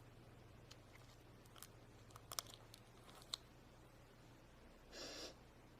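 Near silence, with a few faint small clicks and a soft brief rustle near the end.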